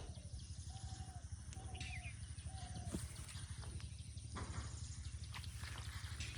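An animal calling in short, level-pitched cries, about four in the first three seconds, over a steady low rumble, followed by scattered sharp clicks.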